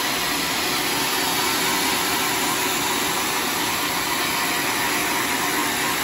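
A band sawmill running through a large hollow teak log, giving a steady, even sawing noise.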